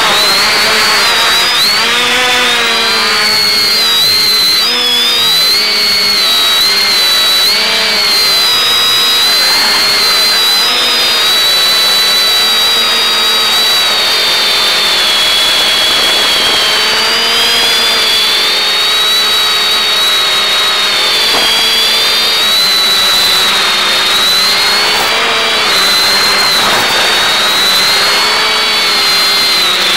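X550AIOP quadcopter's electric motors and propellers running in flight, a steady whine of several tones that drift up and down together over a few seconds as the throttle changes, over a steady hiss from the analog video downlink.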